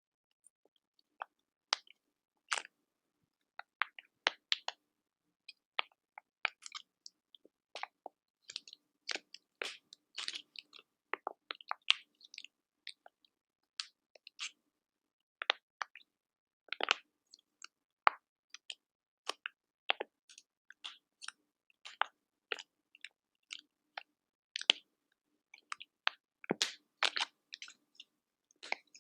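Quiet, close-up crackling: short, sharp crackles and clicks at uneven intervals with brief silences between, bunching into quicker clusters now and then.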